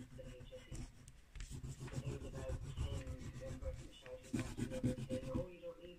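Homemade charcoal-and-beeswax wax crayon scratching and rubbing across textured watercolour paper in quick back-and-forth hatching strokes, getting louder from about a second and a half in.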